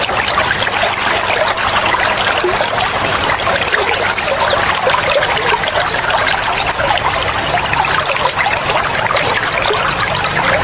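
Steady rush of flowing, splashing water, like a stream or small cascade. Over it, birds call in runs of quick, high, repeated notes, once in the middle and again near the end.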